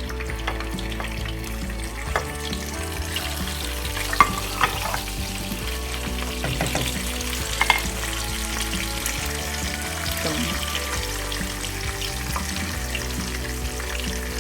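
Cumin seeds sizzling and frying in hot oil in a pan, a steady crackling hiss. A few short sharp clicks cut through it, the loudest about four and eight seconds in.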